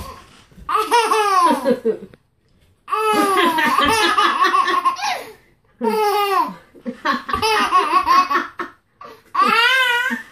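Baby laughing hard in about five bursts of belly laughter, with short pauses for breath between them.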